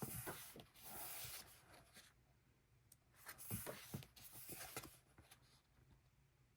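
Paper rustling as the glossy pages of a photobook are turned and handled, in two stretches of about two seconds each with small clicks and taps.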